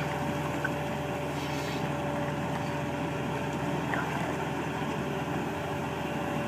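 Tracked excavator's diesel engine running steadily with an even, level hum.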